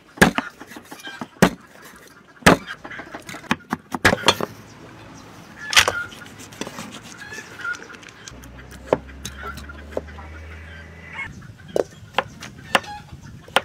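Knife chopping on a cutting board, irregular sharp knocks as shark meat and ginger are cut, with hens clucking faintly in the background.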